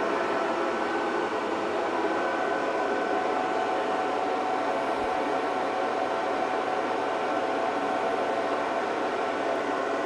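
Power inverter running steadily under a 900-watt toaster load: an even rushing noise with faint steady tones in it.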